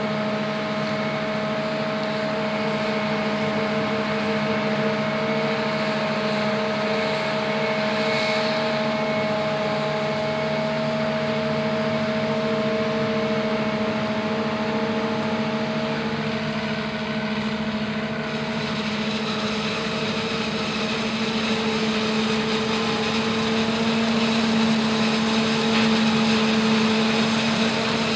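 New Holland FR9060 self-propelled forage harvester with a Kemper 460 maize header, running under load while chopping corn: a steady drone of engine, cutterhead and blower. A truck's engine runs alongside as it takes the chopped crop.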